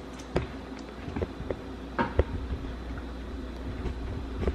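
Handling noise as a phone camera is carried across a kitchen and set in place: a few short knocks and bumps, two of them close together about two seconds in, over a steady low hum.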